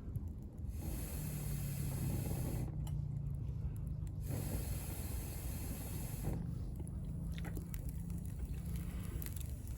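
Fire burning in a small camp wood stove: a steady rushing of the flames that swells and eases, with scattered sharp crackles of burning wood late on.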